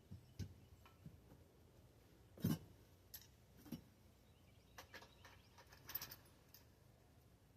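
A few scattered clicks and knocks of bike parts being handled and sorted, the loudest about two and a half seconds in.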